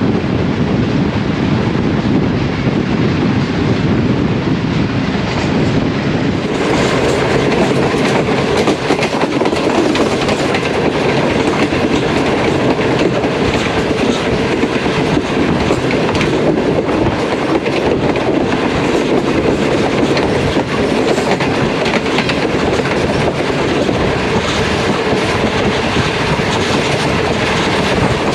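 Rehmanbaba Express passenger train running past at speed, its coaches and wheels making a steady, loud rushing noise on the track. About six and a half seconds in, the noise turns brighter and hissier.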